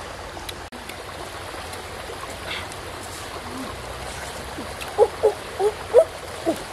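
Steady trickle of a small shallow stream. About five seconds in, a run of short, high calls that bend up and down in pitch starts over it.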